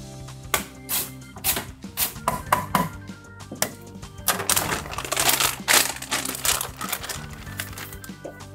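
Background music over quick, sharp clicking strokes of vegetables being slid across a mandoline slicer in the first three seconds. About four seconds in comes a stretch of rustling as packets are handled in a refrigerator.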